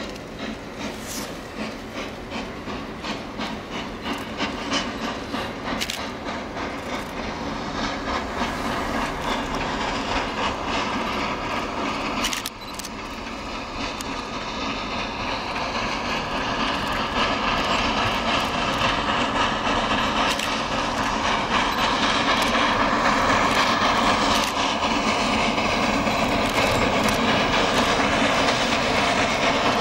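Quincy Railroad No. 2 steam locomotive working toward the listener with a train of freight cars, its exhaust chuffing in a steady beat and growing steadily louder.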